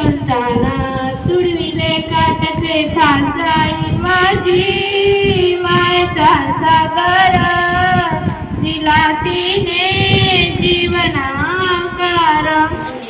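A schoolgirl singing a song solo into a handheld microphone, with long held notes that bend and slide. The singing stops near the end.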